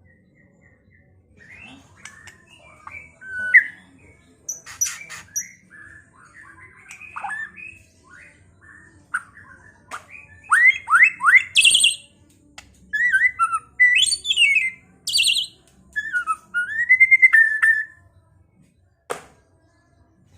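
White-rumped shama (murai batu) singing a varied song of clear whistles, rising and falling sweeps and quick trilled notes, delivered in short phrases with brief pauses, getting louder in the second half. A single sharp click near the end.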